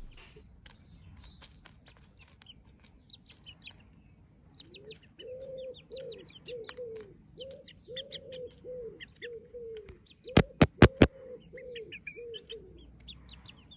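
Young hens calling and pecking at a metal tin. High chirps sound throughout, a run of low, evenly repeated calls starts about five seconds in, and four sharp taps of beaks on the tin come just after ten seconds.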